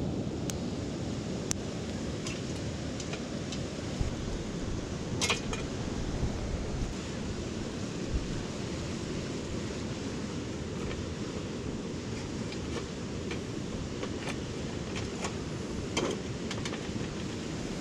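Mountain stream rushing steadily over rocks, a constant heavy water noise, with a few scattered sharp clicks.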